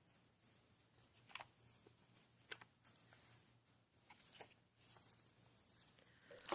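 Faint rustling of packaging being handled, with a few light clicks and taps scattered through it.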